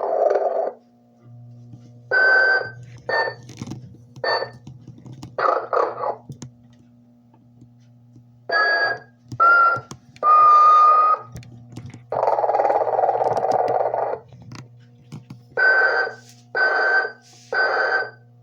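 Telco Sleeping Mr. Santa animated figure playing its recorded snoring through a small speaker: long rasping snores alternate with groups of short, whistling puffs, repeating over a steady low hum.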